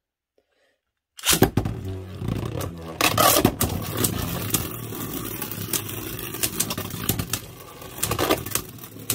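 Two Beyblade Burst spinning tops in a plastic stadium: a steady scraping whir of their tips on the stadium floor, with sharp clacks as they hit each other, starting suddenly about a second in.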